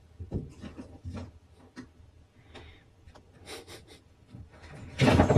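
Light knocks and rubbing as a cat moves against and climbs onto a cardboard box, then a loud clatter near the end.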